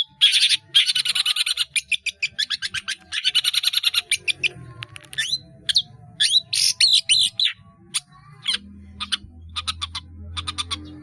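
Long-tailed shrike (cendet) singing a varied song of mimicked phrases: fast chattering note trains and whistled slurs with brief pauses. A low steady drone joins in under the song about three-quarters of the way through.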